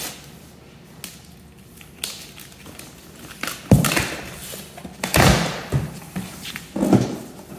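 Large cardboard box being opened by hand: packing tape ripped off and the cardboard flaps pulled open, with thumps of cardboard. It is quiet for the first few seconds, then three loud spells of ripping and thudding come in the second half.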